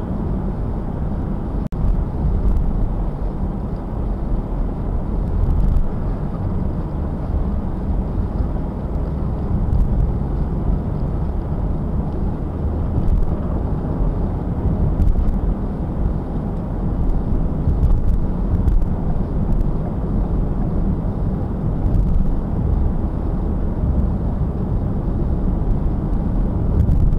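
Steady in-cabin road noise of a car driving at highway speed: a low rumble of tyres and engine picked up by a windshield dash camera.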